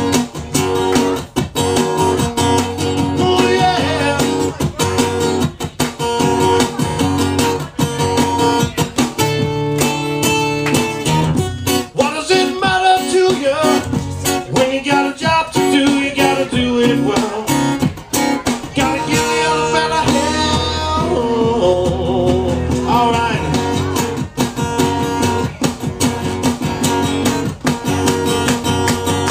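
Live blues song on strummed acoustic guitar, with a man singing in parts.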